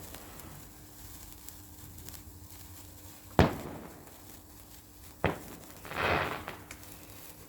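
Fireworks going off: a sharp bang about three seconds in, a second crack nearly two seconds later, then a brief crackling burst.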